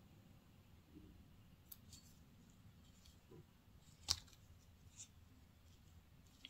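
Quiet handling of a wristwatch's leather strap and metal buckle, with a few small clicks. The sharpest click comes about four seconds in.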